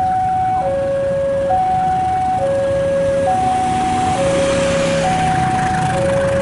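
Railway level crossing alarm sounding an electronic two-tone warning, alternating evenly between a high and a low note about once a second. A rising rush of noise joins it about halfway through.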